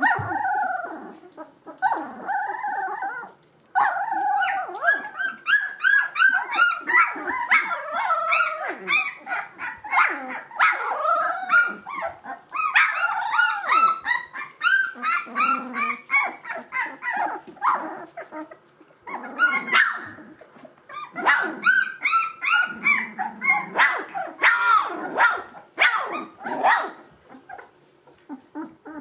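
Two-week-old Gordon Setter puppies whining and squealing: many short, high, rising-and-falling calls tumbling over one another, dying down near the end.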